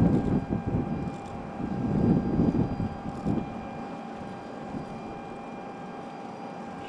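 Hangar ambience: low rumbling surges, like wind buffeting, for about the first three seconds, then settling to a steady hum with a faint steady tone.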